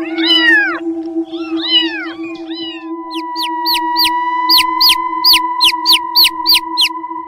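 Domestic cat meowing two or three times, then a quick run of short, high chirps, about three a second, over steady held background music tones.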